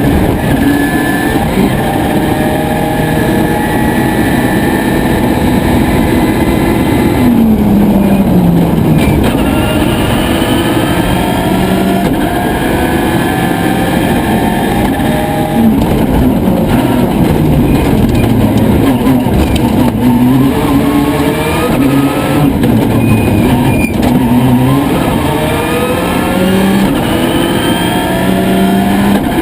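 Subaru Impreza WRC rally car's turbocharged flat-four engine driven hard on a stage, revving up through the gears and dropping off for corners, the pitch climbing and falling again and again.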